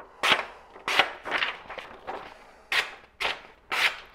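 A freshly stropped knife blade slicing through a sheet of paper in about seven short strokes, roughly two a second. Each stroke starts sharply and fades quickly, with some weaker than others. It is a sharpness test after honing.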